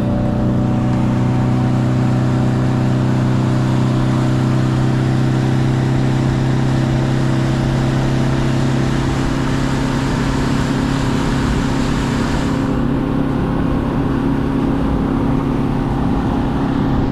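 Motorboat engine opened up to full throttle, running as a steady drone over a rushing hiss of wind and water; the hiss eases a little about thirteen seconds in.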